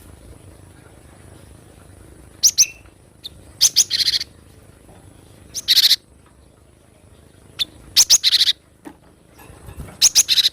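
Cinereous tit (gelatik batu) calling in short clusters of rapid, high chirps, about five clusters a second or two apart.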